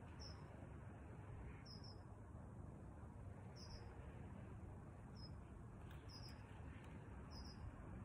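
Faint, short, high chirps from a small animal, repeating about six times at roughly even spacing over a low steady hiss.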